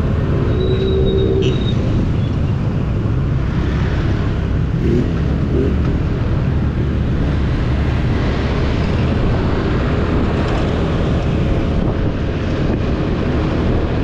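Motor scooter riding through traffic: a steady low rumble of wind on the microphone and engine, with passing traffic around it. A short higher tone sounds about a second in.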